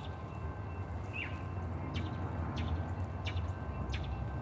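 Small birds chirping now and then: about half a dozen short, high chirps and one falling call about a second in. Under them runs a steady low rumble.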